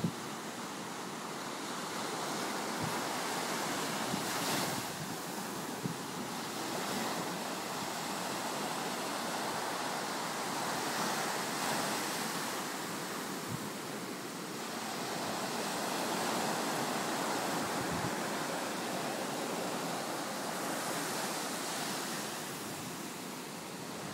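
Ocean surf breaking and washing up the beach, a steady wash that swells and ebbs over several seconds at a time.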